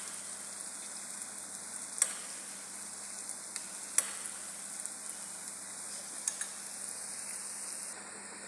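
Geimat dough balls deep-frying in hot oil: a steady sizzle with a few sharp clicks now and then.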